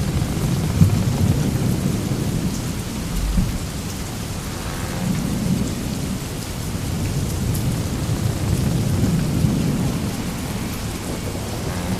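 Sailing-ship ambience sound effect: a steady low rumble with a hissing wash above it, swelling and easing every few seconds.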